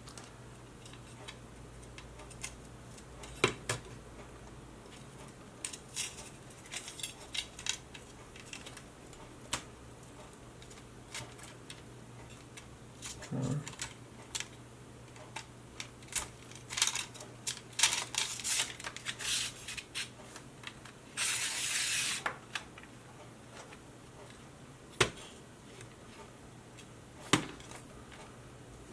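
Small plastic and metal parts of an IKEA NORRFLY LED lighting strip clicking and clattering as they are handled and fitted back together, with scattered sharp clicks and a busier stretch of rattling past the middle. About two-thirds through comes a second-long scraping hiss, over a faint steady hum.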